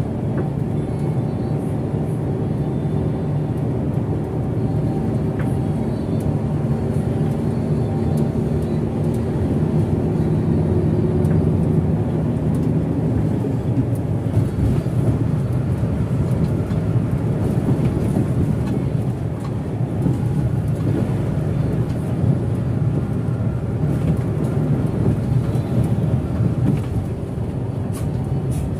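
Hino RK8 bus's six-cylinder turbo-diesel engine running at cruise with tyre and road noise, heard from inside the bus. The steady engine hum turns into a rougher rumble about halfway through.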